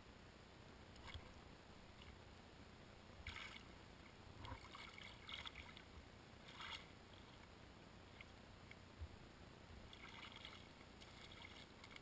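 Near silence, muffled by a GoPro's waterproof case, broken by a few faint, short scattered rustles.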